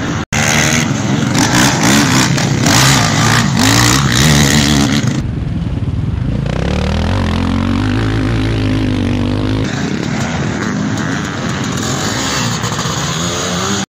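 Sidecar motocross outfits' motorcycle engines revving hard and accelerating through corners on a dirt track, pitch rising and falling with the throttle. The engine sound changes abruptly a few times as one outfit gives way to the next.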